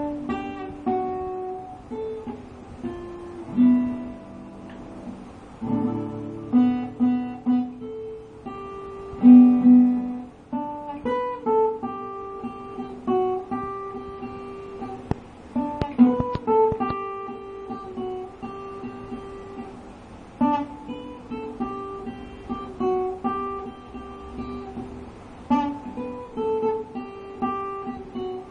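Guitar playing a picked melody: runs of single notes stepping up and down over a low repeated note, the phrase starting afresh about every five seconds.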